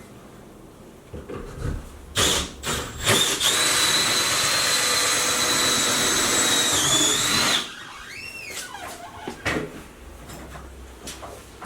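A power drill runs steadily with a constant whine for about four seconds, after a few knocks. Soon after it stops, a short whine rises and then falls.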